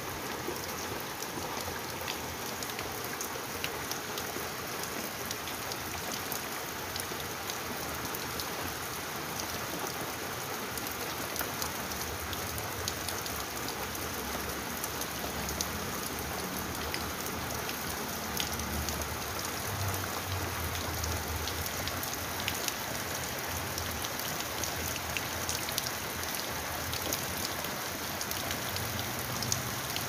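Steady rain falling, a continuous hiss dotted with the small ticks of individual drops hitting a surface.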